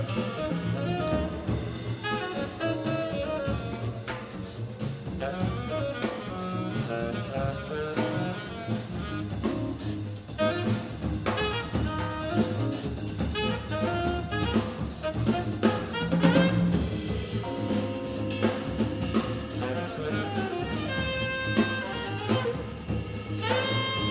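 Small jazz band playing: tenor saxophone over piano, double bass and drum kit.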